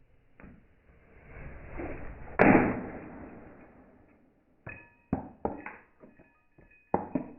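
Remote-control car controller being smashed in a rage quit: a rising rush ends in one loud hit about two and a half seconds in. A run of sharp knocks and clatters follows in the second half.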